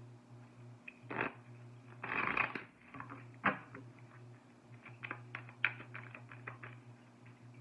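A deck of oracle cards being handled and shuffled: a few sharp taps and a short rustle about two seconds in, then a run of light card clicks, over a steady low hum.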